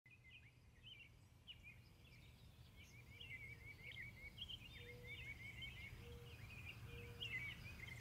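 Faint birdsong: several small birds chirping and twittering over a low steady rumble, slowly fading in.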